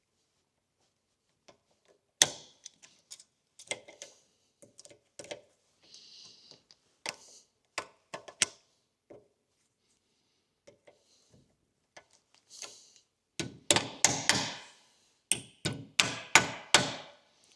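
Metal clicks and knocks of retaining clips being fitted into a universal joint on a Jeep driveshaft yoke. Near the end comes a quick run of about a dozen sharp hammer taps, seating a clip that is not as easy to turn.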